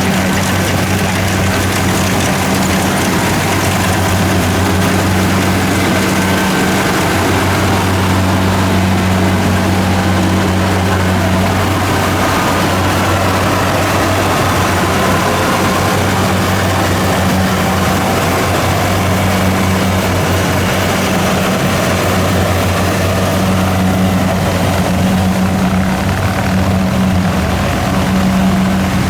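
Diesel engine of a Kubota DC70 rice combine harvester running steadily, a constant low hum with no let-up.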